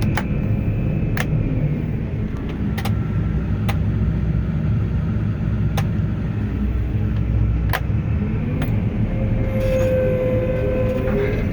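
John Deere 9500 combine's six-cylinder diesel running steadily, a low rumble heard from inside the cab, with a few sharp clicks scattered through it. The grain tank is being emptied into a wagon.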